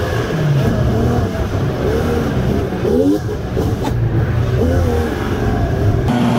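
A motor vehicle's engine running under a heavy low rumble, its pitch rising and falling in short swings as the revs change.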